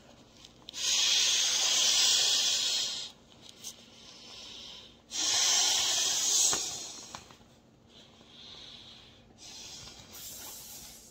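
A person blowing hard into the one-way valve of an inflatable camping pillow to inflate it: two long, strong breaths, with quieter breaths between and after.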